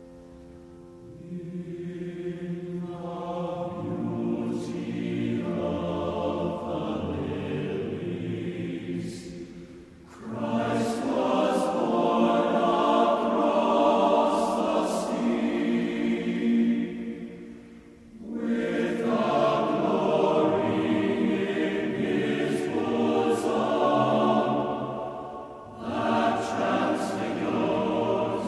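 Background music: a choir singing in long, sustained phrases, pausing briefly about every eight seconds.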